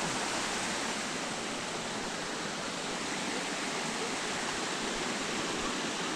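Steady rushing of water from a cascading stream or small waterfall, an even hiss with no breaks.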